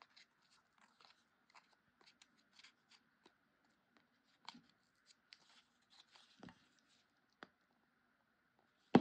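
Faint rustling and light clicks of stiff paper petals being handled and fitted together by hand, with a sharper knock right at the end.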